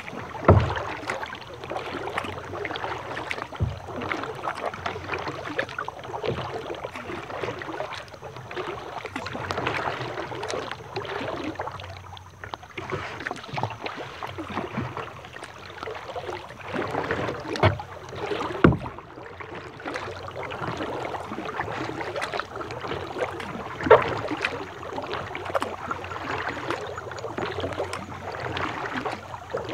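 Steady patter of rain and dripping water on and around a plastic Lifetime kayak as it moves on the river, with a few louder knocks or splashes against the hull now and then.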